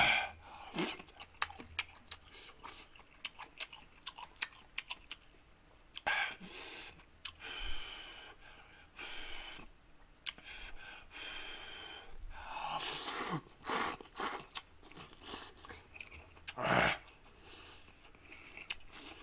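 A person eating ramen noodles close to the microphone: wet chewing and lip-smacking clicks throughout, broken by several longer noisy slurps, the sharpest about three quarters of the way through.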